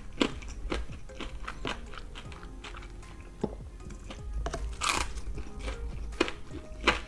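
Close-up eating sounds: irregular crunching bites and chewing, with one louder crunch about five seconds in, over quiet background music.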